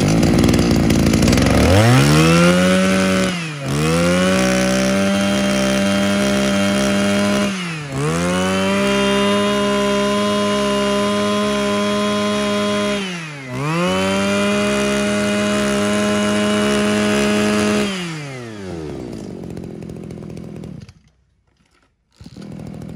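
Echo Kioritz 26 cc two-stroke brush cutter engine catching and revving up to high throttle, held there with three brief dips where the throttle is let off and opened again. Near the end it drops back to idle and then shuts off.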